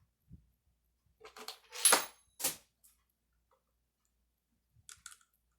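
Clicks and clatter of small metal chuck parts being handled and fitted onto a laser rotary attachment, with a sharp loud clack about two seconds in and another just after, then a few light clicks near the end.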